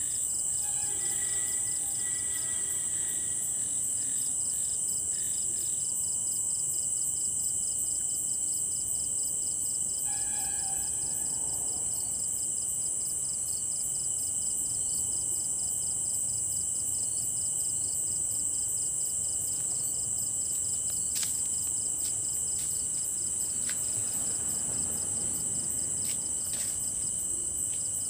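A chorus of crickets trilling steadily at night, in several high overlapping layers. A few faint short calls come through in the first seconds and again about ten seconds in, and a few faint clicks come near the end.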